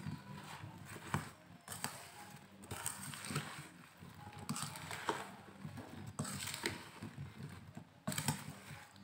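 A spoon stirring oily jujubes and spices in a stainless steel bowl, with irregular knocks and scrapes against the bowl as the pickle is mixed.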